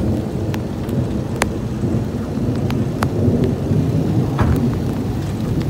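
Thunder rumbling low and steadily, with a few scattered sharp ticks.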